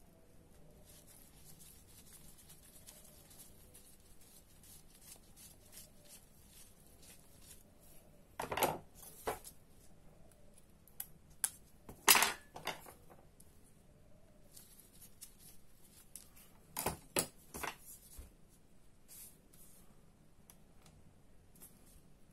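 Small metal scrapes and clicks of a screwdriver and tweezers working inside the frame of a Daiwa Seiko Coronet 5 reel as it is taken apart. There are three clusters of sharper clinks, about eight seconds in, around twelve seconds (the loudest) and again near seventeen seconds.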